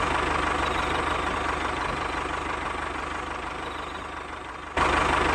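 Tractor engine idling steadily with a rapid low pulse. It grows gradually quieter, then jumps back louder at an abrupt cut a little before the end.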